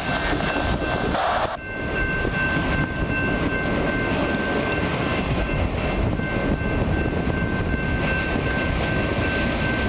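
Freight train autorack cars rolling past at speed: a steady rumble of steel wheels on rail, with wind buffeting the microphone. A thin, steady high whine runs over it, and a hiss cuts off about a second and a half in.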